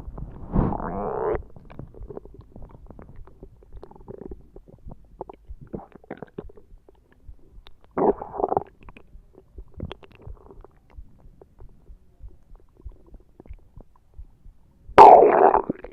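A person's stomach growling: three short gurgling rumbles, about a second in, about eight seconds in and near the end, the last the loudest, with faint small gurgles and clicks between them.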